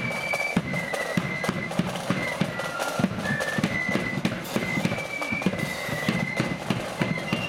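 Marching flute band playing a tune: a high flute melody stepping from note to note over busy drumming that includes a bass drum.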